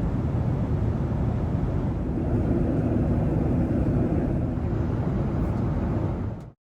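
Steady low rumble of an airliner's engines and airflow heard from inside the cabin. It cuts off suddenly near the end.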